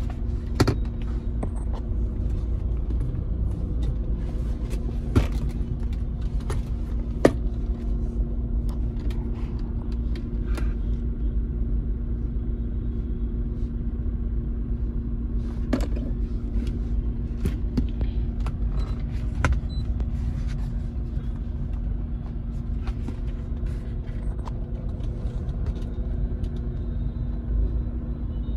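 Chevrolet Cruze 2.0 turbodiesel engine idling steadily, with occasional sharp clicks and knocks.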